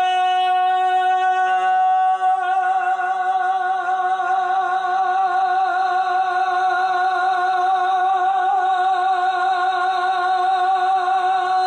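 A man singing one long held high note a cappella, with a slight vibrato.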